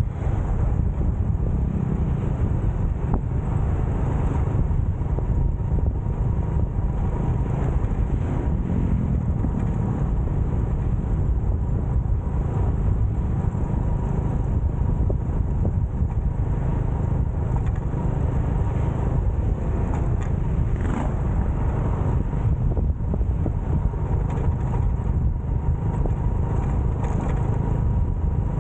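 Steady low rumble of a motorcycle ride: engine and road noise at an even level, heard on the rider's camera.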